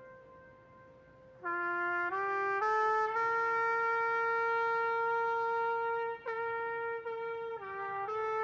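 A solo brass instrument plays a slow melody: a faint held note at first, then from about a second and a half in a rising run of notes into a long held note, with shorter notes near the end.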